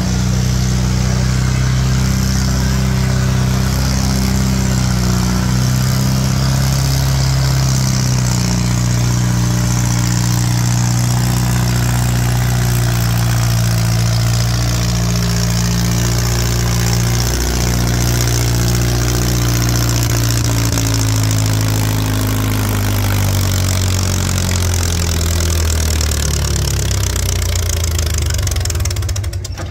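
Antique red Farmall tractor's engine pulling a weight-transfer sled under full load, running steady at first, then its pitch sinking slowly through the second half as the engine lugs down under the growing drag of the sled. The engine drops off briefly near the end.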